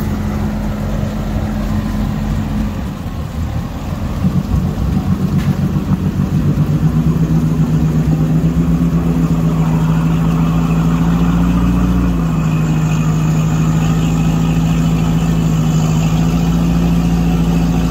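Off-road 4x4's engine running under load while a winch hauls the vehicle slowly out of a deep mud rut, a steady drone with a pulsing stretch from about four seconds in. The pitch dips slightly about twelve seconds in.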